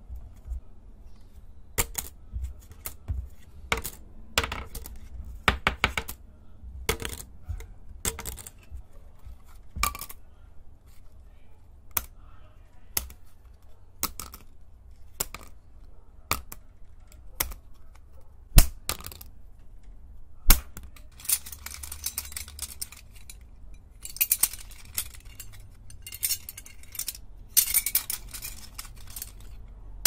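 Puzzle-shaped plastic Q-bi tazos dropped one at a time onto a wooden desk, each landing with a sharp click about every second. In the last third the clicks come quicker and run together into a clatter as several tazos are handled together.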